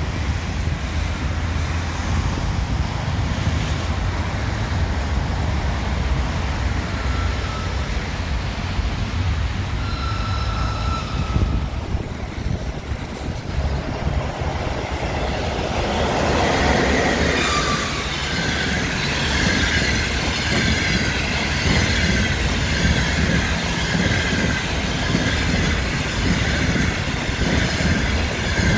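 Passenger train hauled by an EP1M electric locomotive approaching and running past. At first there is a steady low rumble. From about halfway the locomotive and coaches go by louder, with a sustained high wheel squeal over the running noise of the wheels on the rails.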